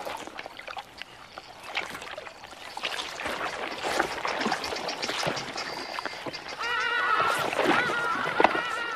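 Wet mud and water sloshing and splashing as a crocodile swings its head through a muddy pool. About seven seconds in, a run of quick repeated animal calls joins in and is the loudest thing until the end.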